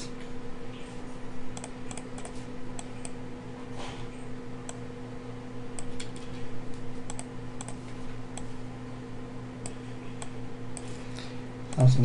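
Irregular clicks and taps from a computer keyboard and mouse, over a steady low hum.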